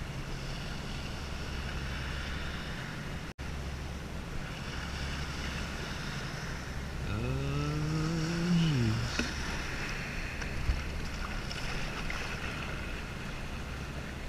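Low, steady drone of party-boat engines close by, with water sloshing as their wake rolls past the kayak. About seven seconds in, a pitched tone rises and then falls for about two seconds.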